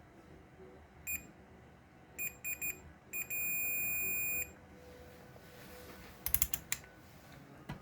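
Electronic beeper sounding a high beep, then three quick beeps, then one held for about a second, at uneven intervals. Later a cluster of sharp clicks and a knock.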